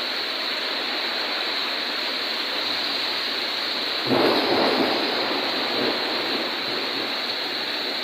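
Heavy rain pouring down steadily. About four seconds in a louder rush swells up suddenly and fades away over the next couple of seconds.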